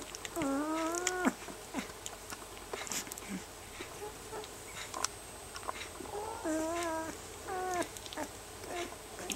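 Young rough collie puppies, about 18 days old, whining: one long whine about half a second in, then a few shorter whines later on, with faint clicks from the litter shuffling between them.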